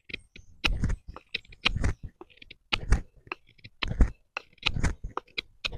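BPS Bushmate bushcraft knife carving a wooden stick: a quick run of short cuts, about two or three a second, each stroke of the blade slicing a shaving off the wood.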